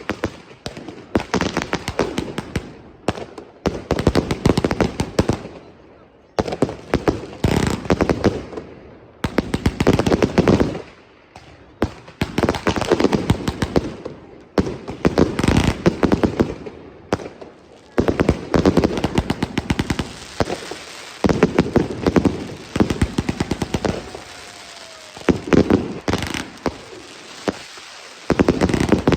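Funke Air Dance F3 firework going off: volleys of rapid, sharp bangs and crackles, a new volley every second or two with short lulls between.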